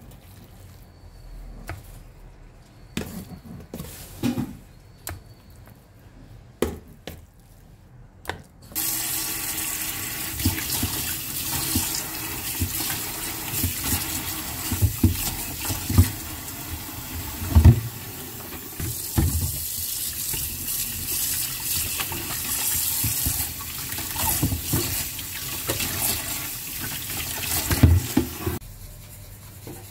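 Water from a kitchen tap running into a plastic tub in the sink as it is rinsed, with some knocks against the sink. The tap comes on after a stretch of scattered clicks and knocks, about a third of the way in, and shuts off suddenly just before the end.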